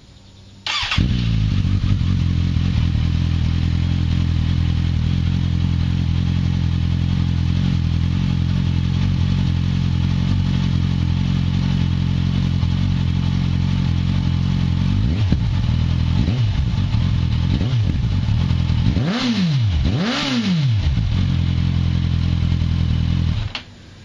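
Sport motorcycle with a Delkevic slip-on exhaust, baffle fitted, starting under a second in and idling steadily. Partway through come a few light throttle blips, then two quicker revs that rise and fall in pitch, and the engine is switched off shortly before the end.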